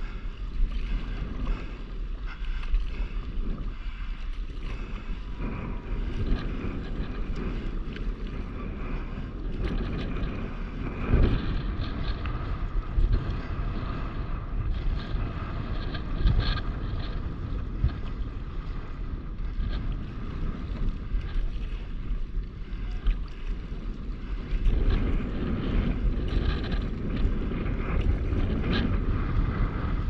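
Wind rumbling on the microphone over the wash and slosh of choppy sea water around a paddleboard, with irregular gusts and splashes.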